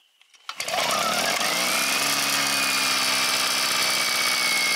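Small portable gasoline generator starting: the engine catches about half a second in and revs up, its pitch rising over the next second, then settles into a steady running drone.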